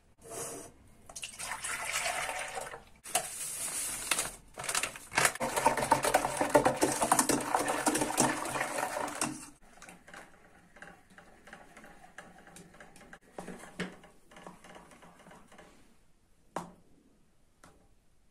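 Milk pouring from a carton into a glass measuring jug, a steady stream with a few short breaks that stops about nine and a half seconds in. After that come quieter clicks and scrapes of a whisk stirring a chocolate mixture in an enamel pot, with one sharper knock near the end.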